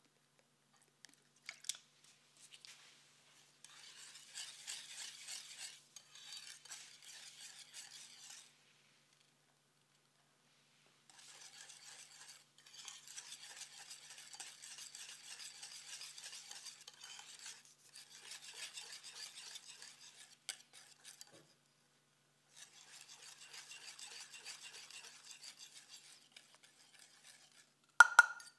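A wire whisk beating thick cheesecake batter in a glass bowl, in several spells of rapid whisking with short pauses between. Near the end comes one sharp, ringing clink against the glass bowl.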